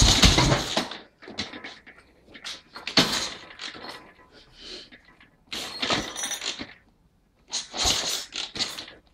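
Metal exhaust pipe scraping and knocking against its fittings as it is twisted and worked into place by hand, in irregular bursts of about a second each, with a faint high metallic squeal in one of them.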